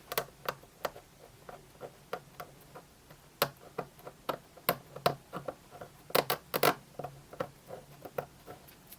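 Irregular clicks and short scratching strokes as a sticker is picked and scraped off the steel body of an adjustable spanner, the loudest few coming together about six seconds in.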